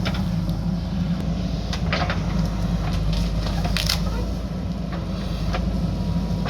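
JCB backhoe loader's diesel engine running steadily, with several short sharp knocks over it, the loudest about four seconds in.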